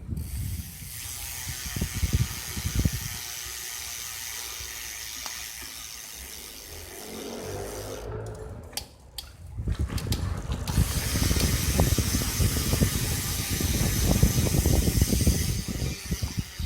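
Speedone Soldier six-pawl bicycle hub freewheeling, its pawls ratcheting in a fast, high-pitched buzz while the wheel turns without pedalling. About eight seconds in it breaks into a few separate clicks, then buzzes again for several seconds.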